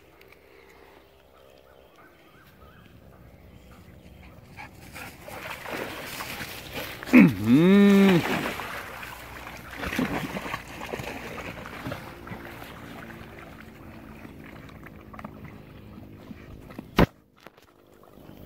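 Dogs splashing into a muddy pond and paddling through the water. About seven seconds in there is one loud, drawn-out call, about a second long, that dips and then rises in pitch, and a sharp click comes near the end.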